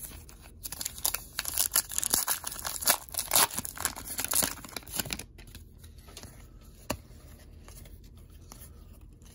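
A baseball card pack's wrapper being torn open and crinkled for several seconds, then quieter shuffling of the cards with a single click about seven seconds in.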